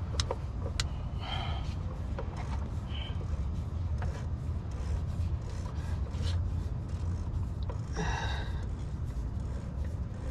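Hand work on a truck's spin-on filter: short rubbing and scraping sounds and a few sharp clicks as the filter is twisted on, over a steady low rumble.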